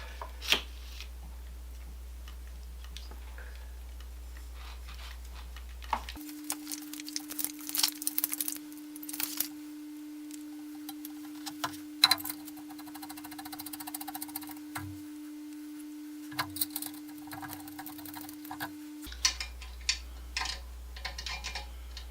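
Scattered metal clicks and clinks of Allen screws and spring washers being handled and driven in with an Allen key while bolting on exercise-bike handlebars, over a steady background hum whose pitch changes from about six seconds in until about nineteen seconds in.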